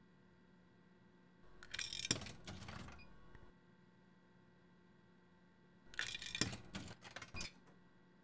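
Two coins fed one after another into a drinks vending machine's coin slot, each clinking and rattling down through the coin mechanism, the second about four seconds after the first; each is accepted and credited as 20p.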